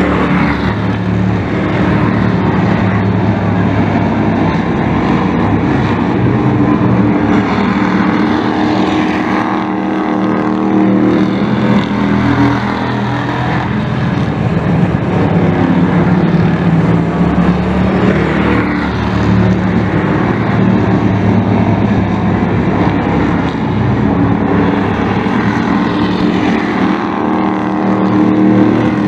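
Several dirt-track race trucks running at speed around an oval. Their engines swell as the pack passes and fade as it goes around, several times over.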